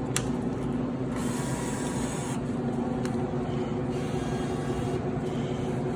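Steady electrical hum of vending machines, with a click, a brief whirring of a bill acceptor from about one second in, and another click about three seconds in, as the machine refuses a dollar bill.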